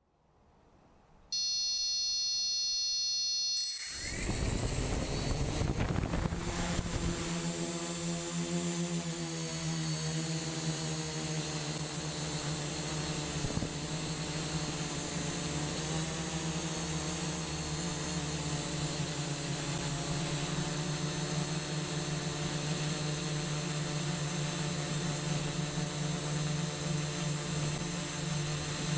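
TX8 3D-printed octocopter's eight 880kv brushless motors with 10x4.7 APC slow-fly props, picked up close by its onboard camera. A brief electronic tone comes first, then the motors start about four seconds in with a rough rush and settle into a steady hum with a constant high whine as it flies.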